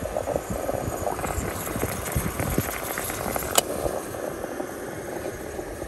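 Portable gas camping stove burning under a Bialetti Moka Express pot: a steady hiss with scattered crackle, and one sharp click about three and a half seconds in.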